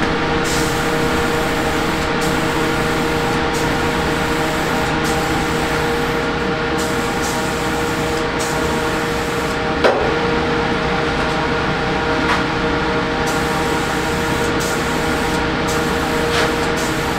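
Aerosol spray-paint can hissing in long passes with brief pauses, over a steady hum.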